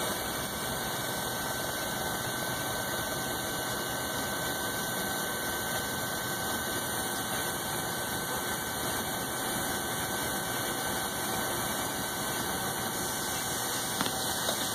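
Metal lathe running at steady speed with a thin constant whine, while a boring tool cuts inside the neck of a spinning brass .280 Ackley rifle case. One light tick near the end.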